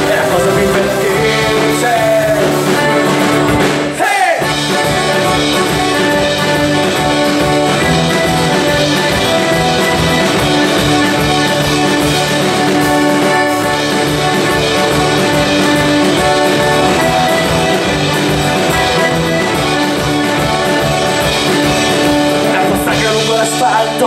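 Live band playing an instrumental passage: accordion holding long notes over strummed guitars and a steady drum beat, with a brief break about four seconds in.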